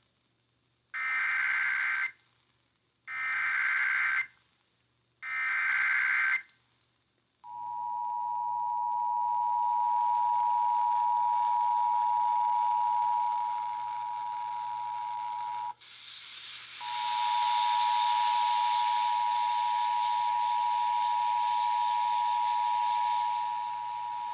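Emergency Alert System header received over broadcast radio: three short bursts of digital data screech, then the steady two-tone attention signal, which drops out for about a second near the middle and resumes, over radio hiss. It announces an incoming severe thunderstorm warning.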